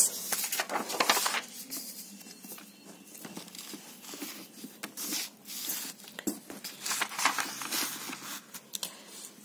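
Sheets of paper rustling and crinkling as they are handled, swapped and smoothed flat on a board, in irregular bursts, busiest at the start and again about seven seconds in.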